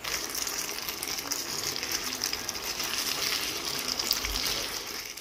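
Chicken wings in sauce sizzling and bubbling steadily in a non-stick frying pan over a medium flame, stirred with a silicone spatula near the end.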